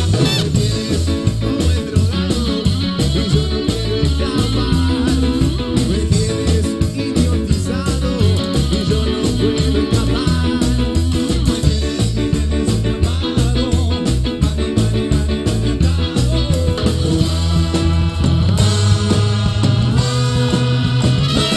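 Live cuarteto band playing a dance number, with electric guitar, bass, horns, keyboard and drums under a steady beat, and a singer on microphone.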